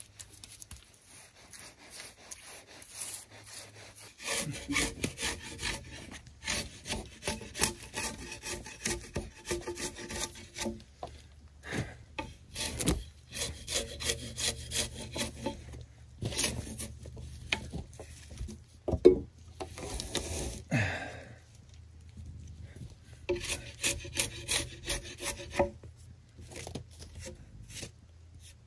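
Hand saw cutting through a small log: quick back-and-forth strokes in several bouts with short pauses, starting about four seconds in. A single sharp knock partway through is the loudest sound.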